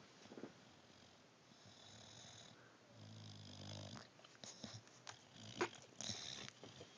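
English bulldog snoring in its sleep: breathy snores, one with a low rattling rumble about three seconds in. A few short clicks come just before the last snore, the loudest near the end.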